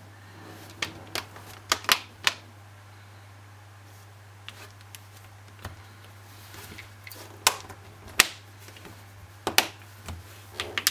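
Plastic back cover of a Samsung Galaxy Note 2 pressed on by hand, its edge clips snapping into place with sharp clicks: a quick run of about five in the first couple of seconds, then a few more spread apart later on.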